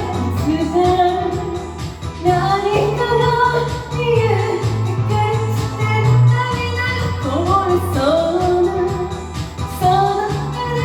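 A woman singing a Japanese pop song over a karaoke backing track with a steady, repeating bass line.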